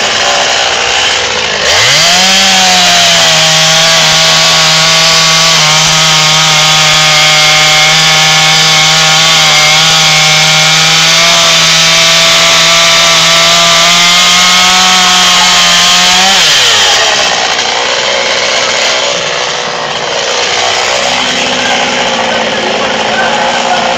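Chainsaw revving up from idle about two seconds in and held at a steady high speed for about fifteen seconds while cutting into a tree trunk, then dropping back to idle.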